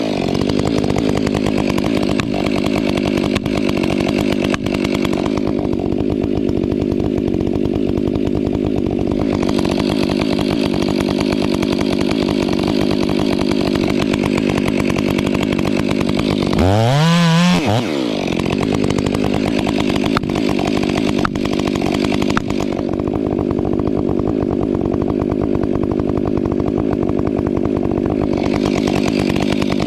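Stihl 500i fuel-injected two-stroke chainsaw running at full throttle under load, cutting into a balsam fir on the felling back cut. About 17 seconds in, the engine pitch briefly rises and then falls back as the saw continues cutting.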